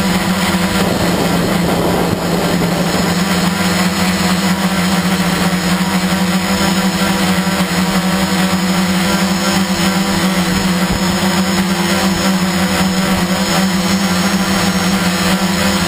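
Electric motors and propellers of a hovering radio-controlled aircraft, heard from the camera mounted on it: a loud, steady hum with a strong low tone. A brief rush of noise comes about a second in.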